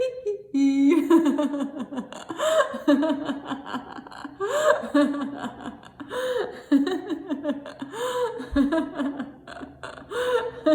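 A woman laughing on and on in short, pitched bursts of "ha" and "ho": laughter-yoga laughter, laughed on purpose as an exercise.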